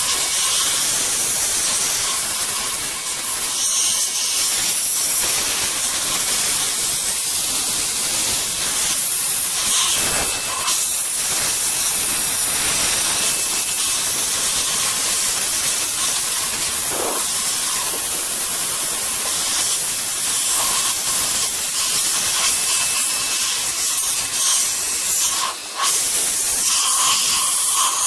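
Compressed air hissing in a steady jet as it blows cleaning liquid out of a typewriter's mechanism, with a brief drop-off near the end.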